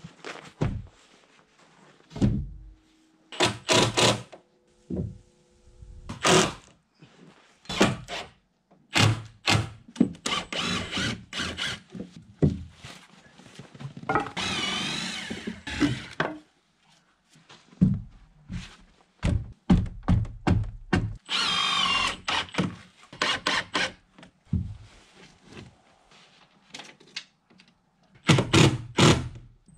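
Rough-cut lumber boards knocking and thunking as they are handled and fitted into a shed frame. A cordless drill runs twice near the middle, each time for a second or two, driving screws.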